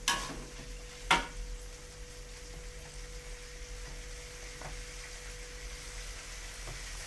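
Fried rice sizzling in a pan, a steady hiss. Two sharp knocks come just after the start and about a second in.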